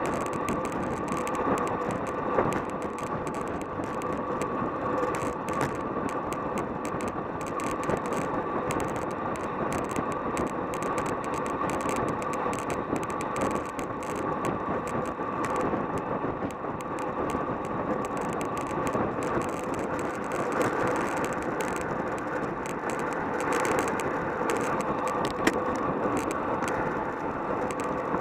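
Wind rushing over the microphone of a camera mounted on a road bike descending at about 35 mph in a racing group, with the tyres running on asphalt. A faint steady tone sits under the rush, with light scattered rattling clicks.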